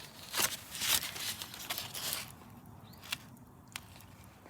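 Rustling, tearing noises for about two seconds, then a few light clicks.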